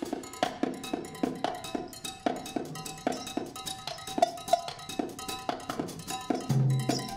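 Live instrumental music: a steady run of short, clipped, pitched percussive hits, about three or four a second, with a low held note coming in near the end.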